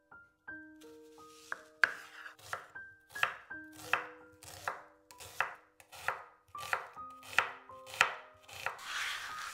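Chef's knife slicing an onion on a bamboo cutting board, each stroke knocking the blade against the wood in a steady rhythm of about two cuts a second, starting about two seconds in.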